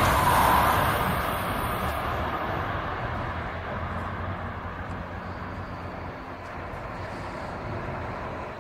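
Amtrak Acela Express high-speed electric train running away down the track after passing, its rolling rumble fading steadily as it recedes.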